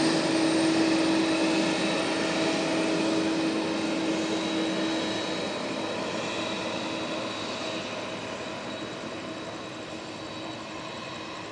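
Boeing 767 jet engines running with a steady whine over a broad rush, fading gradually as the airliner rolls away along the runway.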